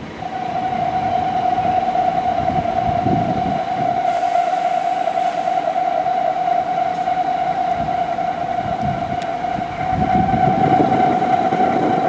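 A low-floor electric tram running past with a fluctuating low rumble, under a steady high-pitched tone that holds one pitch throughout.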